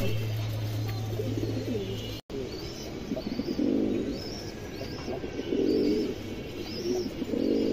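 Domestic pigeons cooing, three deep rolling coos in the second half, with a short high chirp repeating about every 0.7 s over them. A low steady hum stops abruptly about two seconds in.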